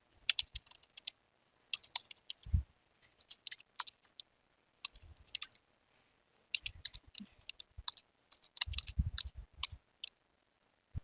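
Typing on a computer keyboard: quick runs of key clicks in irregular bursts with short pauses, with one longer lull in the middle.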